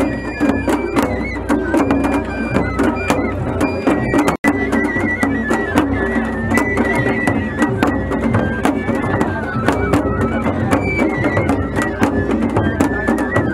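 Japanese festival music played on a float: a large taiko drum struck with sticks in a rapid, steady beat under a high melody held in long steps, typical of a shinobue bamboo flute. There is a momentary dropout about four seconds in.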